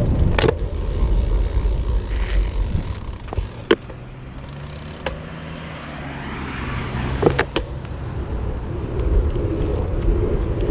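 Wind rumbling on the microphone of a moving bicycle. In the middle the rumble drops and a motor vehicle's steady engine hum comes through. A few sharp clicks are heard, about three in all.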